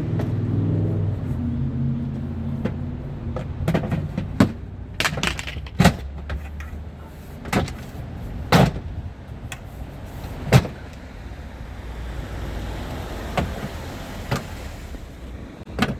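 Plastic trim clip being worked out of a car's tailgate panel with a clip remover tool: a series of sharp, irregular clicks and knocks of plastic and metal. A low steady hum underlies the first couple of seconds.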